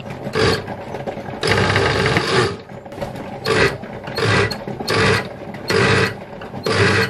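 Electric jug blender motor running in pulses while blending a jug of roasted tomato sauce: a short burst, then one longer burst of about a second, then a string of short bursts about three-quarters of a second apart.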